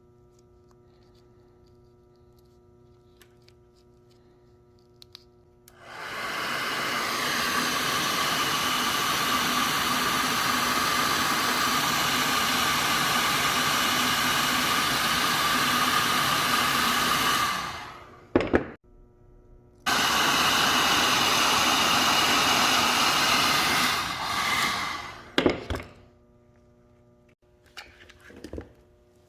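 Loud steady rushing noise, like a blower or motor running, starting about six seconds in and cutting off after about eleven seconds, then running again for about four seconds. A few sharp clicks come between and after the runs.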